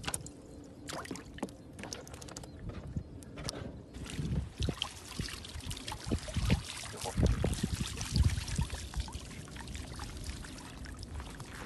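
Water splashing and trickling as a fish trap is handled in the river, with sharp clicks and knocks in the first few seconds, then heavier low splashes and sloshing from about four seconds in.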